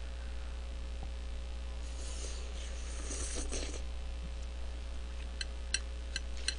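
A person eating jjajangmyeon noodles: a slurp lasting about two seconds in the middle, then a quick run of about five sharp clicks near the end, over a steady electrical hum.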